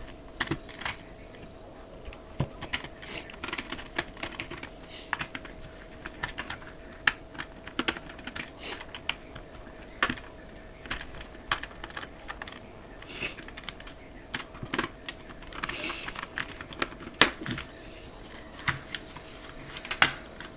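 Irregular light clicks and taps of a screwdriver and small screws as the screws holding an airsoft pistol's body together are taken out, with a faint steady hum underneath.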